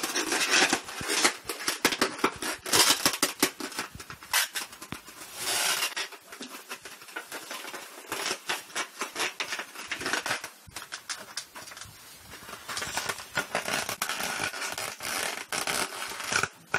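A dog gnawing on an inflated latex twisting balloon: the rubber rubs, scrapes and crackles under its teeth in irregular bursts, with pauses between bouts.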